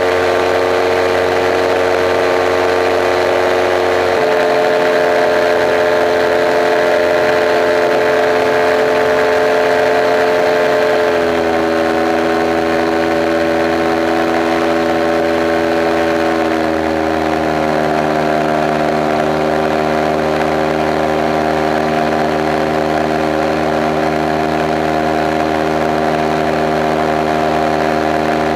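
Kolb Kolbra ultralight aircraft's engine running steadily in flight, heard from inside the open cockpit. Its pitch drops a little in three steps, about 4, 11 and 17 seconds in, as the engine speed is lowered.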